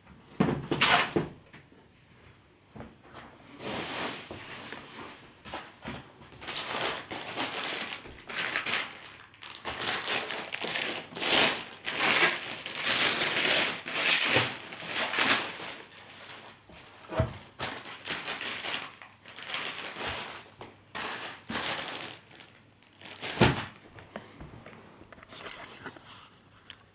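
TV packaging being handled: plastic wrap and foam crinkling and rustling in irregular bursts, with a few knocks.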